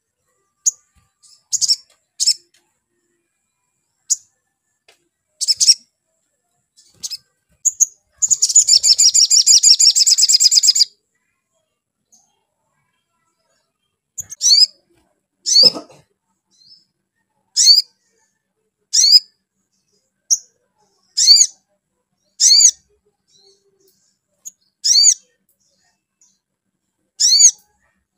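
Olive-backed sunbird calling: scattered short, high chips, then a fast trill of about three seconds near the middle, then a run of sharp down-slurred chip notes, one every second or two.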